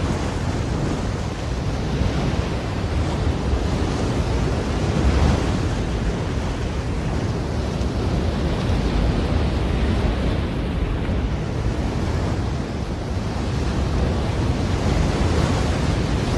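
Storm wind blowing in gusts, buffeting the microphone with heavy low-pitched noise that swells and eases.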